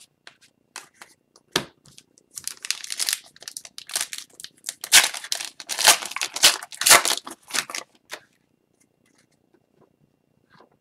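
Plastic-foil wrapper of an Upper Deck hockey card pack being torn open and crinkled in the hands: a run of crackling rustles that is loudest in the middle and stops about eight seconds in.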